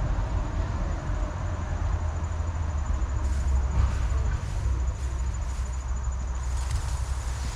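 Pressure washer running: a steady low engine drone with a thin high whine. From about three seconds in, hissing surges come and go as the spray is worked.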